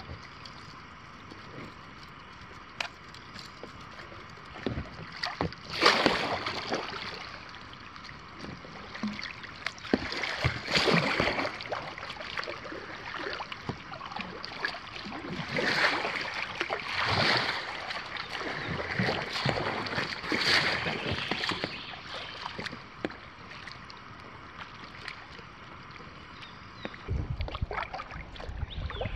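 Kayak paddle blades dipping and splashing as a small inflatable dinghy is paddled along a river, the strokes coming in short runs over a steady hiss, with a low rumble near the end.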